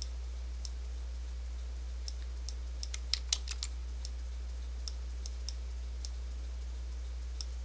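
Computer mouse and keyboard clicks: scattered single clicks with a quick run of several about three seconds in, over a steady low hum.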